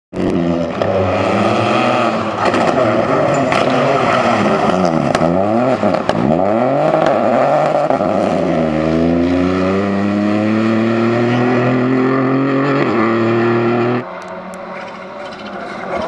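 Rally car engines revving hard as the cars drive past at speed: the pitch swings up and down through the first half, then climbs steadily under acceleration. The sound drops suddenly to a quieter level about 14 seconds in.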